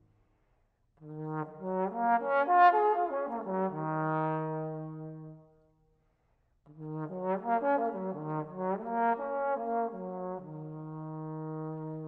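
Solo trombone playing two similar phrases of quick moving notes, each settling onto a long held low note, with a short pause between them.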